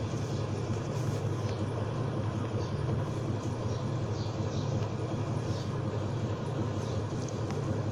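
Steady low background hum with a faint hiss and no speech, unchanging throughout.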